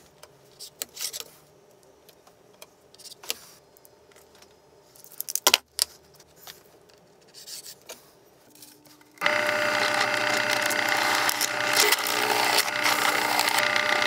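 A few light clicks and taps of a steel rule and pen being handled. Then about nine seconds in, a bench pillar drill's motor starts suddenly and runs steadily.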